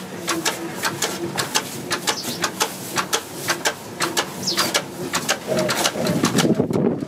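MinkMaster 1100 EL electric feeding machine at work in a mink shed: rapid, irregular sharp clicks and clatter over a faint motor hum, with a louder low rumble near the end as the machine drives on.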